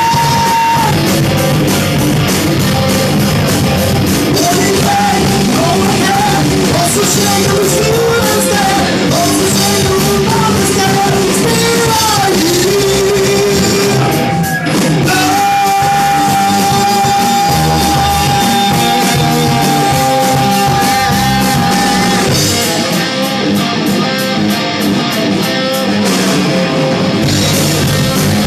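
Loud hard rock music with singing over electric guitar and drums, and one long held high note through the middle stretch.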